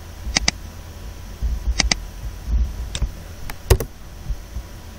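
Sharp clicks of a computer mouse and keys while a web page is refreshed: about eight clicks, most in quick pairs.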